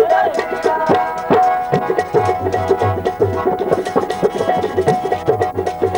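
Harmonium and hand drum playing an instrumental passage of folk devotional music. The harmonium holds reed notes under a wavering melody, over a fast, steady drum rhythm.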